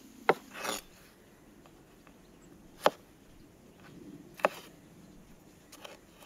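Cleaver chopping tomatoes, the blade cutting through and knocking on a wooden cutting board: three sharp knocks a second or two apart, a brief rustle just after the first, and a couple of fainter knocks near the end.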